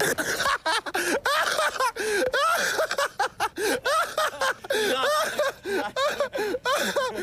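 Laughter in rapid, short, rising-and-falling bursts.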